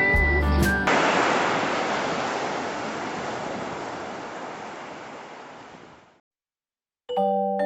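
Sea surf washing on the shore as an even rushing noise, fading out to silence over about five seconds.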